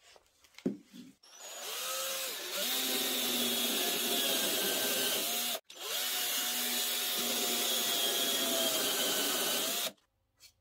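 Cordless drill with a countersink drill bit boring two angled pocket holes into a wood block: two runs of about four seconds each with a brief pause between, after a few light clicks at the start.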